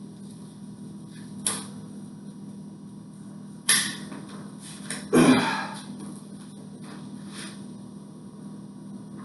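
Sharp knocks and clatter from handling the bike and its packing material: a light knock, then a loud one about halfway through, and a louder clatter with a short rustle soon after, over a low steady hum.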